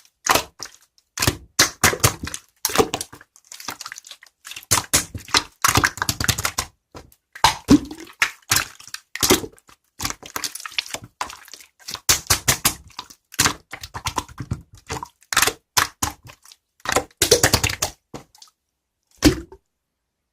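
Clear crystal slime being squished and pressed by hand, making quick runs of wet clicks and pops with short pauses between them, stopping near the end.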